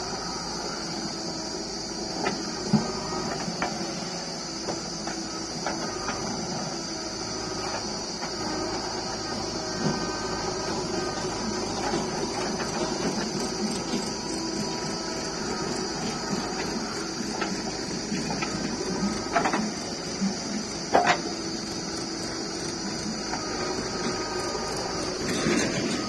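JCB 3DX backhoe loader's diesel engine and hydraulics running steadily as the backhoe digs soil, with a few sharp knocks from the bucket and falling clods, the loudest a little after 20 seconds in.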